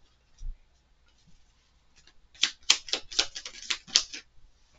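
A deck of oracle cards being shuffled by hand: a soft knock about half a second in, then a quick run of sharp card clicks lasting about two seconds.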